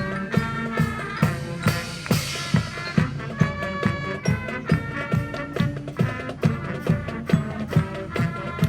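High school marching band playing: brass and winds holding notes over a steady march drum beat, with a cymbal crash about two seconds in.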